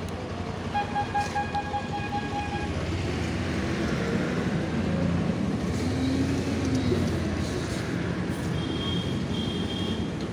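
Motorbike engine running at low speed under street traffic noise. A vehicle horn sounds a steady tone for about two seconds near the start, and a high-pitched beep pulses near the end.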